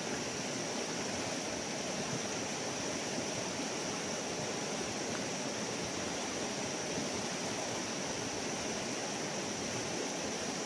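Steady rushing of a rain-swollen river's fast, muddy current.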